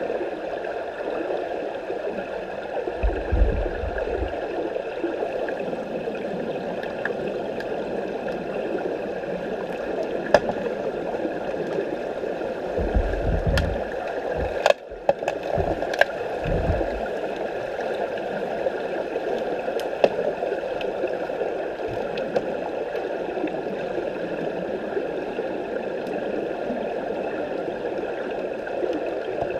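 Underwater swimming-pool noise picked up by a submerged camera: a steady bubbling rush of water stirred by finned swimmers, with scattered sharp clicks and a few low thumps, some about three seconds in and a cluster around the middle.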